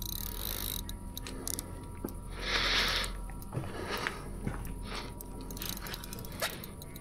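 Handling noise: scattered sharp clicks and a brief rustling scrape about two and a half seconds in.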